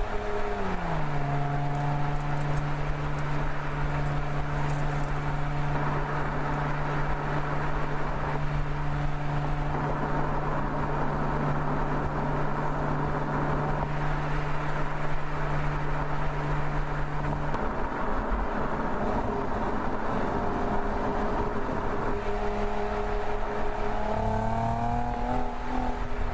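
Mercedes-Benz SL engine running on the move over steady tyre and road noise. Its pitch drops about a second in, holds steady for a long stretch, then climbs again near the end as the car accelerates.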